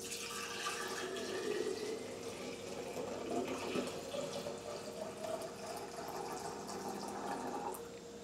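Lemon cream moonshine pouring from a stainless steel pot through a plastic funnel into a glass mason jar, a steady stream of liquid filling the jar that eases off shortly before the end.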